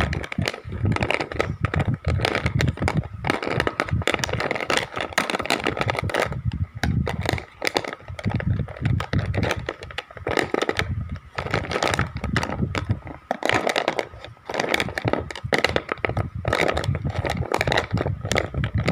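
Wax crayons clicking and rattling against one another in a 24-count crayon box as fingers pick them up and shuffle them, a dense run of irregular clicks with some dull knocks from handling.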